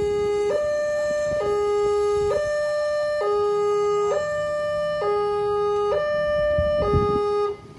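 Railway level-crossing warning alarm sounding a two-tone signal: a low and a high tone take turns, each held just under a second, and it stops suddenly near the end. Motorcycle engines run underneath as riders cross.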